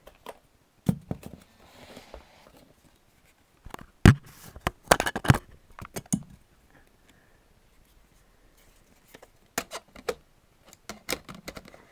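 Handling noise from a Canon 1000D camera body and Sigma 70-300 lens as the lens is readied for mounting: scattered clicks, knocks and scrapes of caps and parts. The loudest cluster is about four to five and a half seconds in, with lighter clicks near the end.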